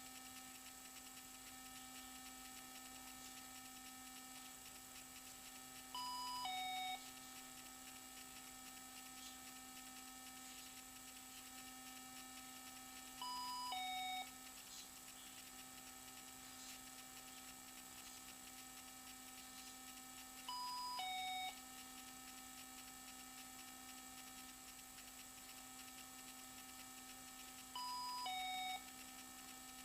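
Homemade VFD alarm clock sounding its alarm: a two-note electronic chime, high then low, repeated four times at about seven-second intervals over a steady low hum.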